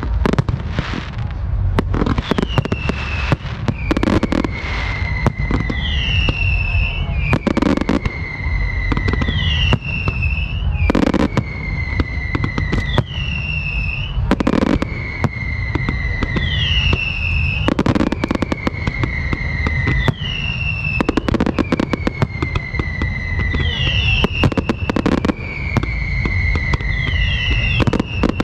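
Aerial fireworks display: a steady barrage of mortar launches and shell bursts with crackling. Over it, a whistle drops in pitch and holds, repeating about every one and a half to two seconds.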